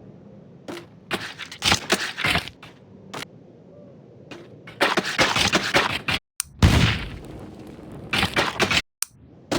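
Coconut crunching and cracking in several loud bursts of up to about a second each, separated by short pauses.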